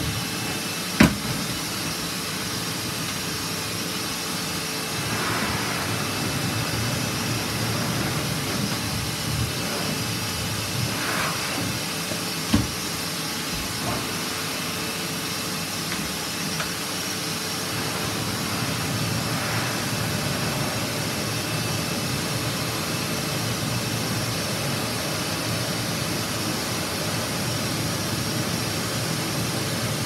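Vacuum cleaner running steadily in blow mode, its hose sending out a continuous rush of air, broken by a sharp knock about a second in and another about twelve seconds in.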